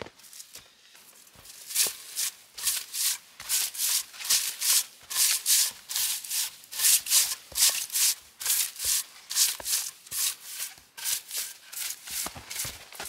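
Spruce bough swept briskly over snow-covered logs, brushing the snow off in quick swishing strokes, about two or three a second, starting a second or so in.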